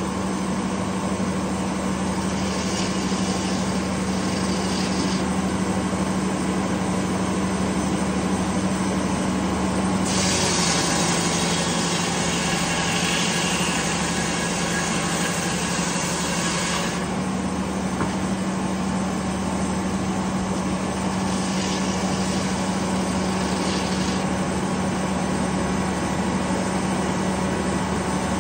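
Detroit Diesel engine running a circular sawmill at a steady pitch. About ten seconds in, the big circular blade cuts through pine for about seven seconds, loud sawing over the engine, which pulls slightly lower under the load and comes back up as the cut ends.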